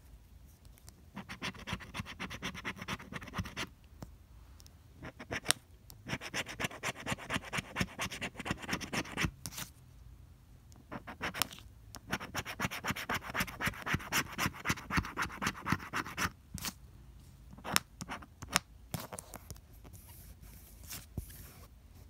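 A plastic scratcher tool scratching the coating off a scratch-off lottery ticket in three long bouts of rapid strokes, then only a few scattered taps and clicks near the end.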